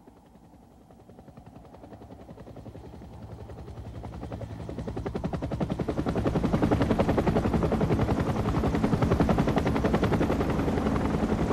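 Helicopter rotor chopping fast and evenly, fading in and growing louder over the first several seconds as it approaches, then holding steady.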